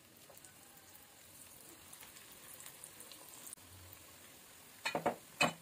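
Bread pakoda batter frying in hot oil in a kadai: a soft sizzle and crackle that builds as the oil bubbles up around the freshly dropped batter. Two short, louder knocks come near the end.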